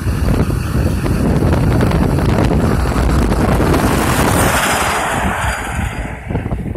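Front-loader garbage truck driving past, its engine and tyre noise swelling about four seconds in and fading as it moves away. Heavy wind buffets the microphone.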